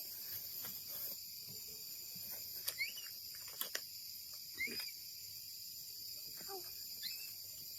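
Steady high-pitched insect trill, like crickets, with a few short rising chirps and a couple of sharp clicks.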